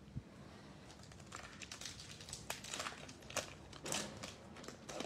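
Plastic wrapper of a Panini Illusions trading-card pack being handled and torn open by hand: a run of faint irregular crinkles and crackles that grows busier from about a second in.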